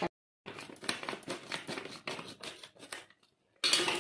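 Plastic packet of gulab jamun ready mix crinkling as it is handled and opened. The sound is a dense run of quick rustles and crackles that pauses briefly and then comes back louder near the end.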